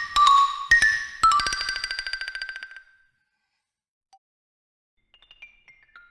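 Xylophone bars struck with mallets: a few ringing notes, then a fast run of rapidly repeated strikes that dies away about three seconds in. After a pause, faint quick notes start near the end.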